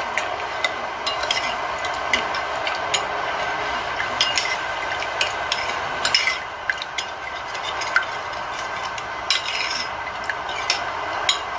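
A metal spoon stirring a thin liquid sauce in a ceramic bowl, with irregular clinks of the spoon against the bowl over a steady hiss.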